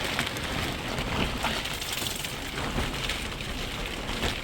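Steady rain falling, a dense patter of many small drop hits over a low rumble.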